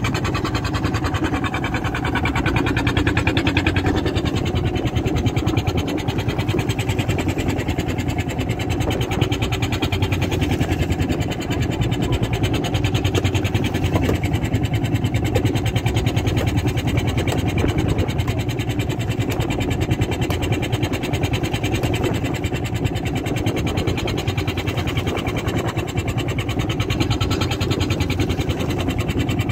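A fishing boat's engine running steadily, a loud, even drone with no change in pace.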